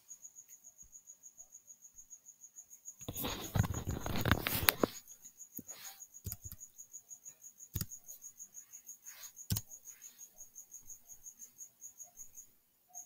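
Computer keys and clicks as numbers are typed into a calculator: a dense run of clattering keystrokes a few seconds in, then scattered single clicks. Behind them a thin, high chirp pulses about five times a second throughout.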